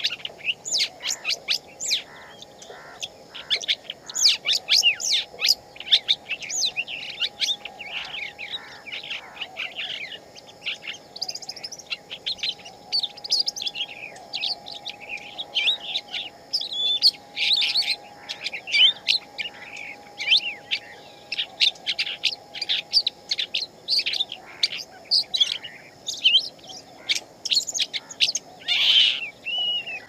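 Songbird singing a fast, varied song of quick chirps and short whistles, nearly without a break.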